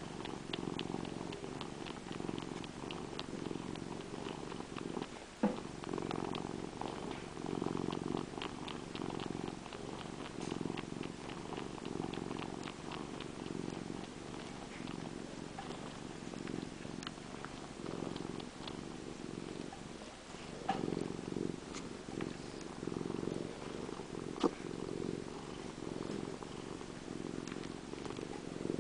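Domestic cat purring steadily, the purr rising and falling about once a second with its breathing. It is sucking on the tip of its own tail, and over the purr comes a run of quick soft clicks, several a second, thickest through the first half.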